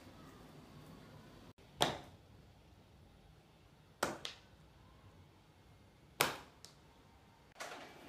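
Three sharp hits about two seconds apart, each dying away quickly, over a faint steady hiss.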